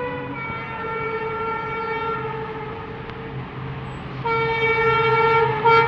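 Horn of an EMD diesel locomotive sounding two long steady blasts; the first fades slightly, and the second comes about four seconds in and is louder. A low steady hum runs underneath.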